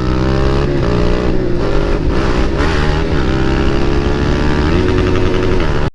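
Motorcycle engine running through an aftermarket Akrapovic exhaust while riding, the engine note holding fairly steady with slight dips and rising a little near the end.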